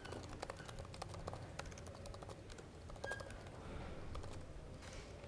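Typing on a laptop keyboard: quick, irregular key clicks, faint.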